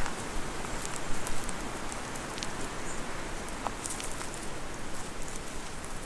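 Footsteps crunching irregularly on a gravel and leaf-litter forest track over a steady rushing hiss.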